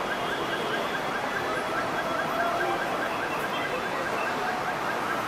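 Busy city street traffic: a steady din of vehicles, with a rapid repeating electronic chirp of about four short rising chirps a second running through it.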